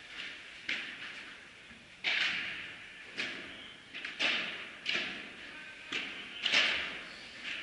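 Padel rally: a ball struck back and forth with solid padel rackets and bouncing off the court, about seven sharp hits spaced roughly a second apart. Each hit echoes in the large indoor hall.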